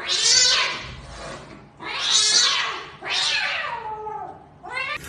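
A cat yowling: three long, drawn-out meows in a row, each falling in pitch.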